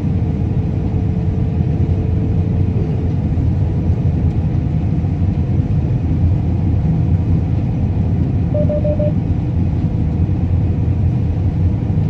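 Combine harvester running during cutting, heard from inside its cab: a steady low rumble. About eight and a half seconds in comes a quick run of four short beeps.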